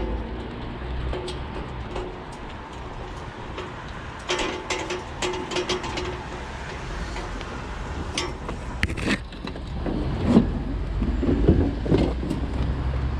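Scrap being shifted into the back of a van: scattered metallic clanks and knocks, with heavier thuds near the end, over a steady low rumble.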